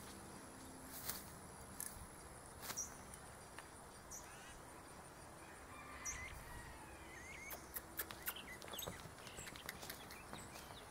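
Faint rural ambience: insects buzzing steadily at a high pitch, with a few small bird chirps near the middle. Scattered light clicks and thuds become more frequent in the last few seconds, as a horse's hooves begin to move on the sand.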